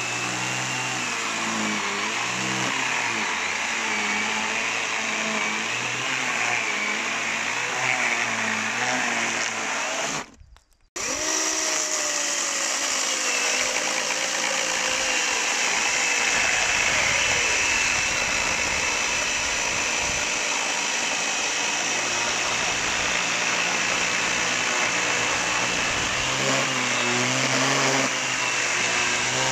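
Parkside PKSA 20-Li B2 20V cordless electric chainsaw cutting through a thick log under heavy load, its motor whine dipping and recovering in pitch as the chain bogs in the wood. The sound cuts out for under a second about ten seconds in, then the sawing resumes.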